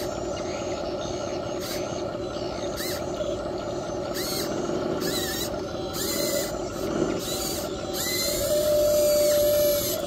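Small electric gear motors of a toy-scale RC excavator whirring as it digs, with several short higher whines as the arm and bucket motors start and stop. The whir grows louder and steadier for the last couple of seconds.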